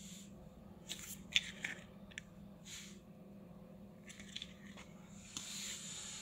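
Plastic blister pack of a microSD card crinkling and clicking as it is handled and turned over in the hand, in short scattered bursts, over a faint steady low hum.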